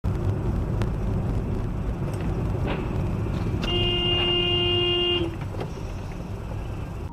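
Steady road and engine rumble heard from inside a moving car, with a car horn sounding once about three and a half seconds in and held for roughly a second and a half as an SUV swerves across the lanes just ahead.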